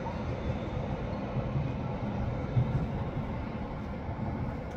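City street ambience on a tram street: a steady low rumble of traffic, with a brief louder knock about two and a half seconds in.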